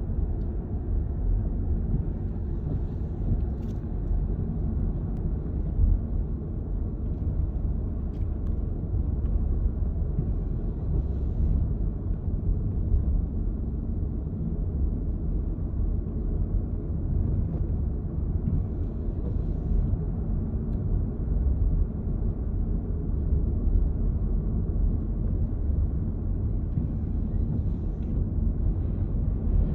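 Storm-force wind buffeting the microphone: a dense, low rumble that surges and eases with the gusts.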